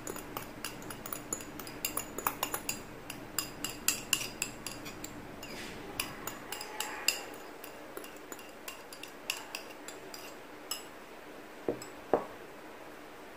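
Ceramic bowls and a metal wire whisk clinking in quick, irregular clicks and taps as a liquid egg mixture is poured from one bowl into another. The clicks thin out after about seven seconds, and two louder knocks come near the end as mixing begins.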